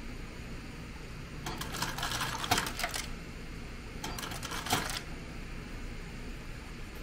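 Ice cubes clattering out of a drink-bar ice dispenser into a paper cup, in two rattling bursts: a longer one a second and a half in and a shorter one about a second later.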